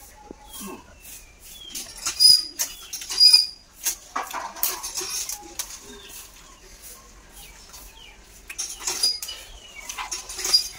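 Someone eating rice and cooked snails by hand from a steel plate: scattered clicks of shells and fingers on the plate, with two loud mouth noises about two and three seconds in. Small birds chirp faintly in the background.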